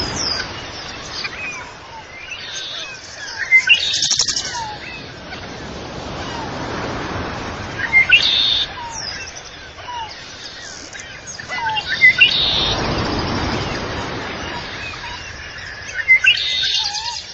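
Birds chirping and tweeting, with bright clusters of calls about every four seconds, over a rushing noise that swells and fades every few seconds.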